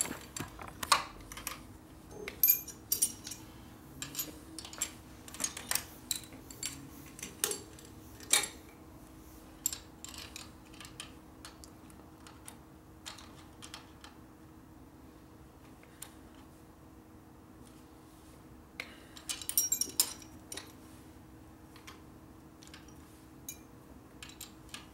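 Wrenches clicking and clinking on the valve adjuster of a 1949 Harley-Davidson panhead engine as the valve clearance is reset, with frequent sharp metal taps through the first half and a quick cluster about twenty seconds in. A faint steady hum runs underneath.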